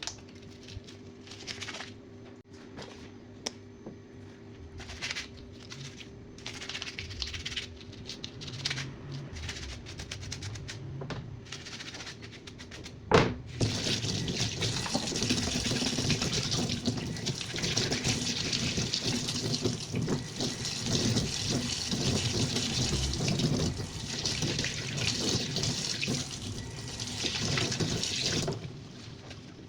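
Scattered small handling clicks, then a sharp click about halfway through and tap water running for about fifteen seconds, stopping shortly before the end: a twin-tub washing machine's lint filter being rinsed under the tap.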